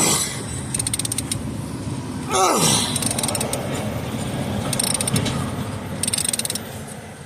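Hand socket ratchet clicking in several short runs while a starter mounting bolt is worked loose, with two brief falling squeaks about two seconds apart.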